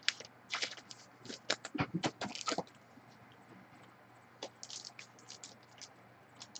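Faint, irregular clicks and scrapes of trading cards being handled and shuffled, busiest in the first two and a half seconds and sparser after.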